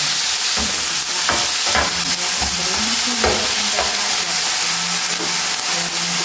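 Sliced onion and chicken pieces sizzling in a nonstick frying pan while a slotted spatula stirs them. The spatula scrapes and taps against the pan about six times over the first four seconds, over a steady sizzle.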